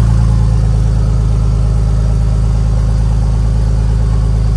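An engine running steadily, a loud, even low hum that holds at one pitch.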